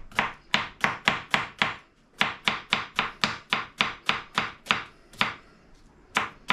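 Kitchen knife chopping on a cutting board in quick, even strokes, about three to four a second, with two short pauses.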